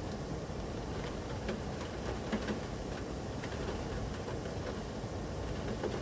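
Steady rush of a rain-swollen, muddy stream pouring over a stone weir, with a few faint scattered ticks.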